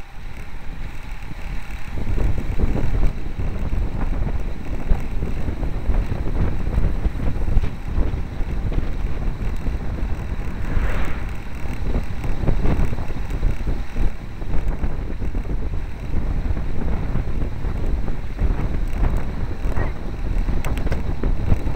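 Wind buffeting the microphone of a bicycle-mounted camera riding in a group of road cyclists, a steady low rumble.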